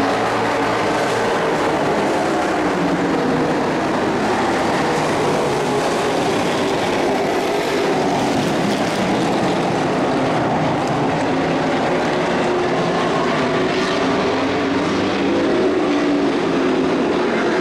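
Dirt-track race trucks' engines running at racing speed around the oval, several engines overlapping in a steady, loud drone.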